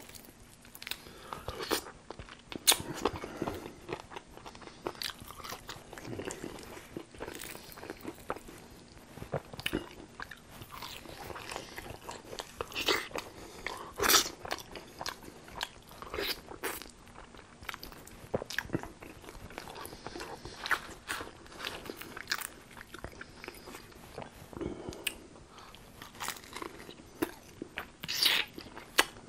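Close-miked biting and chewing of crispy tempura-battered fried chicken: irregular crunches and chewing, the loudest crunches about halfway through and near the end.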